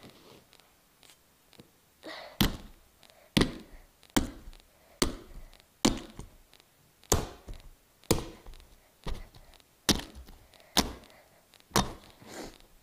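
Heavy hammer striking a Nokia flip phone again and again: about a dozen sharp knocks, roughly one a second, starting about two seconds in.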